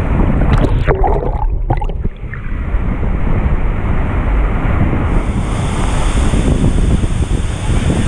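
Steady rush of a waterfall pouring into its rocky pool and the churning water around it, with wind rumbling on the microphone.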